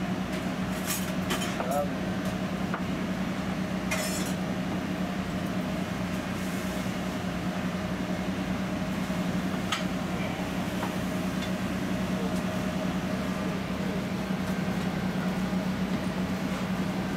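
Steady low machine hum of a food-truck kitchen, with scattered clinks of metal utensils and pans: several in the first two seconds, one about four seconds in and another near ten seconds.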